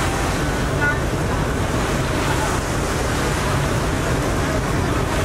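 Star Ferry crossing the harbour, heard from its open lower deck: a steady rush of water breaking along the hull, with a low rumble underneath and wind on the microphone.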